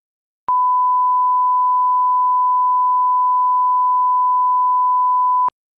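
Broadcast line-up test tone played with colour bars: one steady, unbroken beep at a single pitch. It starts with a click about half a second in, lasts about five seconds, and cuts off sharply with a click near the end.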